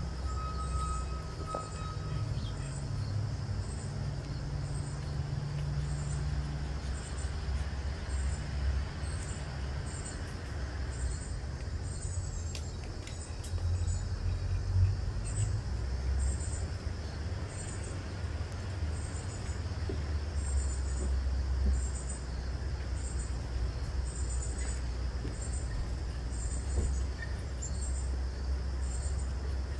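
A steady low outdoor rumble, with a faint high double chirp repeating a little more than once a second.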